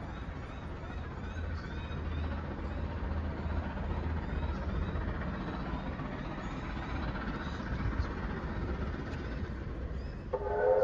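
Low rumble with birds chirping, then about ten seconds in the whistle of 3801, a steam locomotive, starts a loud, steady blast as it approaches.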